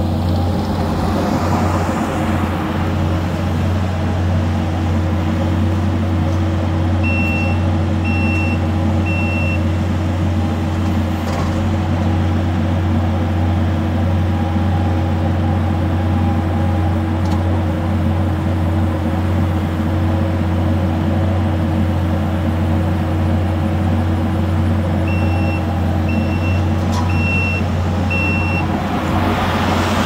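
Kubota SVL compact track loader's diesel engine running steadily under work. Its backup alarm beeps in two short runs: three beeps about seven seconds in, and several more near the end.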